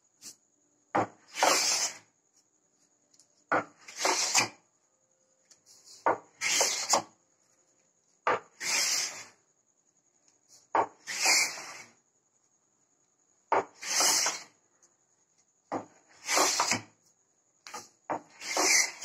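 Wooden Krenov-style smoothing plane taking shavings off a board. There are eight strokes about two and a half seconds apart, each a short click followed by a hiss of about half a second.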